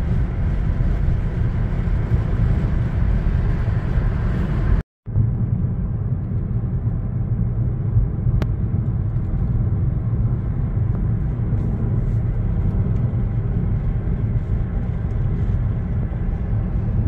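Steady low rumble of a moving car, heard from inside the cabin. It cuts out completely for a moment about five seconds in, then carries on slightly duller.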